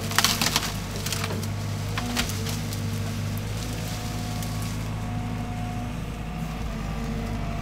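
Wood cracking and splintering as an excavator-mounted MDE Koala tree shear cuts through hedge branches: a quick run of sharp cracks in the first second and another about two seconds in, over the steady running of the JCB excavator's engine.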